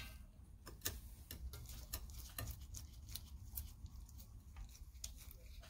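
Faint, irregular clicks and light taps from a Stihl USG bench chain sharpener being adjusted by hand, its grinding wheel lowered onto the clamped saw chain.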